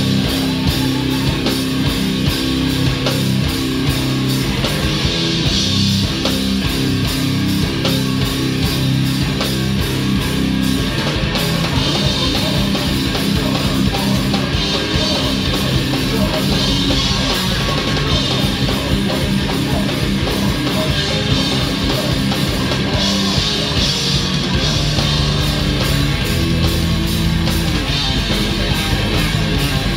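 Live metallic hardcore band playing loud and heavy: distorted electric guitars, bass and a drum kit.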